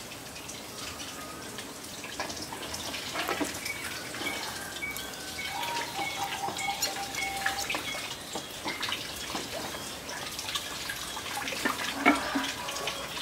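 Water running from an outdoor tap into a plastic basin, splashing and dripping, with scattered small clicks and drops.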